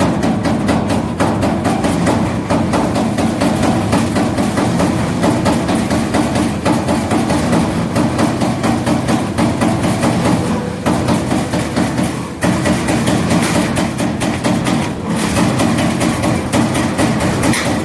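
CNC turret punch press punching sheet metal, a fast run of sharp repeated strokes over a steady machine hum, pausing briefly twice in the second half.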